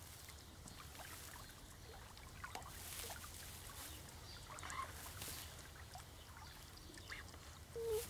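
Eurasian beavers grooming their fur inside the lodge: faint rustling and scratching in fur and bedding, with a few short, faint calls.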